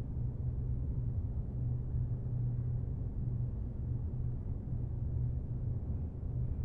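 Steady low rumble, a deep continuous hum with no distinct events.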